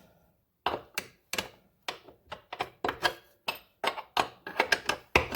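Irregular sharp metallic clicks, about two or three a second, starting about half a second in, from hand work on a Honda TRX90's chain adjuster and carrier.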